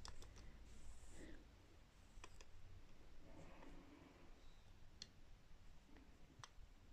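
Faint, scattered clicks of small Czech glass beads being picked up on a needle and slid onto the thread. There are a handful of separate ticks over near silence.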